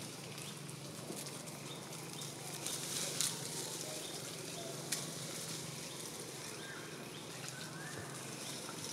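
A young macaque handling and biting an empty plastic soda bottle: scattered crinkles and sharp crackles of the plastic, the sharpest a little before the middle, against steady outdoor background noise.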